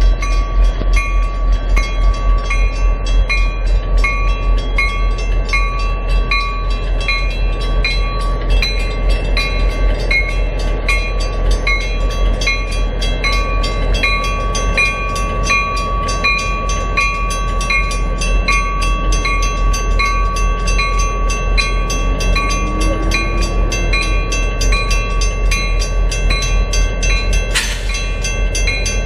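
Railroad crossing bell ringing in a steady, even rhythm of about two strokes a second over the low rumble of a diesel locomotive and passenger cars pulling away. A short hiss near the end.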